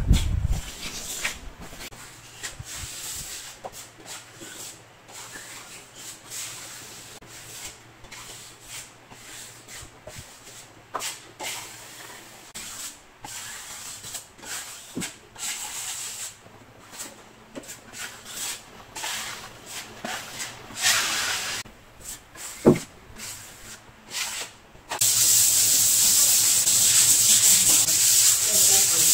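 Metal putty knife scraping and spreading wall filler across a plastered wall in irregular strokes, with one sharp tap a little before the end of the scraping. About 25 seconds in, hand-sanding of the dried filler with a sanding block takes over: a louder, steady rasping hiss.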